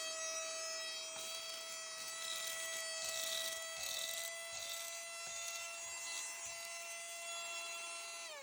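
Portable handheld vacuum cleaner running with a steady high-pitched motor whine, with bursts of rushing air about three to four seconds in; at the very end the motor begins to wind down in pitch.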